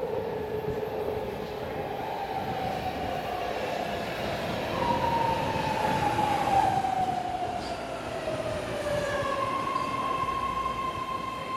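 BART train pulling into an underground station, with the echo of the platform. Its whine falls in pitch twice as it slows, over a steady running rumble. A steady high tone holds near the end.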